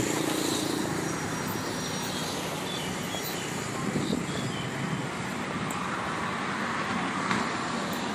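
Urban street traffic: a steady hum of passing road vehicles.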